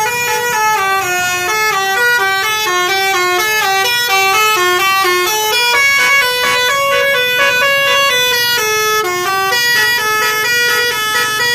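Bus telolet (basuri) melodic horn playing a tune, one held note after another in a steady stepped melody, loud throughout.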